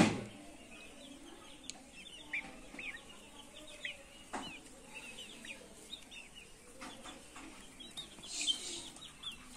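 A brood of chicks peeping with many short, high chirps, with an adult chicken clucking low now and then.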